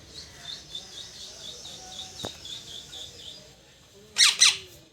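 A parrot chirping in a quick run of short high notes, about four a second, then giving a loud, harsh squawk near the end.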